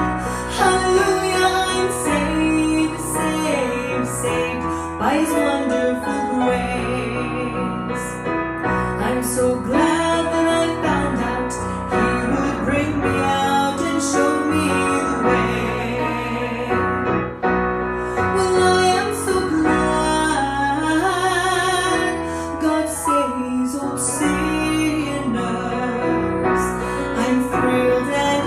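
A woman singing a gospel song into a microphone over piano accompaniment, the melody sung in long held phrases.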